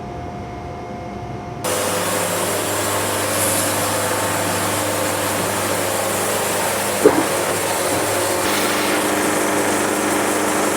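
Wood-Mizer band sawmill running, its engine and band blade sawing steadily. A quieter steady hum gives way abruptly to the louder sawing noise about two seconds in, and there is one sharp knock about seven seconds in.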